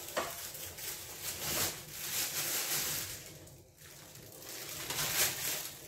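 Plastic roasting bag crinkling and rustling as a cooked chicken inside it is lifted out of an air fryer basket, with the cooking juices in the bag sloshing.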